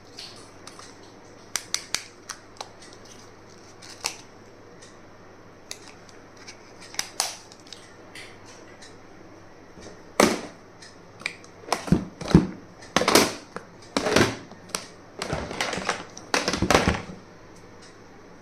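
Small objects and packaging being handled: scattered light clicks and taps, then from about ten seconds in a busier run of louder knocks and rustling.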